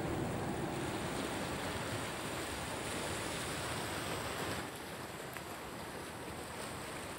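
Steady rushing wind-and-sea ambience, an even noise with no distinct events, which drops slightly in level about four and a half seconds in.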